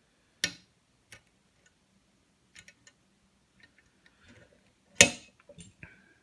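Lock pick and tension wrench working the pins of a pin-tumbler lock: a series of small irregular clicks, with two sharp louder clicks, one about half a second in and one about five seconds in.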